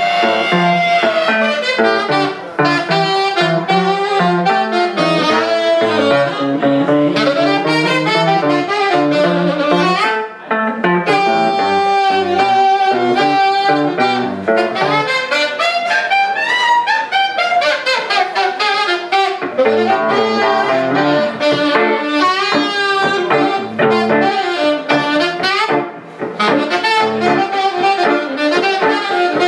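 Saxophone playing a jazz melody line over electric guitar chords, a live sax-and-guitar duo. Around the middle the saxophone runs up and back down.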